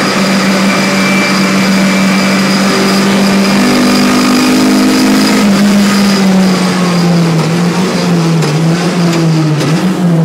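Engine of a tuned Renault Clio heard from inside the cabin, holding steady revs, then the revs easing gradually down over the second half.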